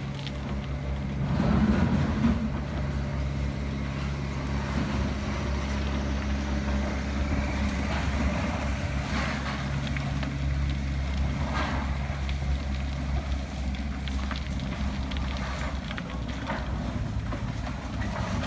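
Demolition excavators' diesel engines running steadily, with crunching and clattering of concrete being broken off and falling, loudest about two seconds in and again in scattered cracks later.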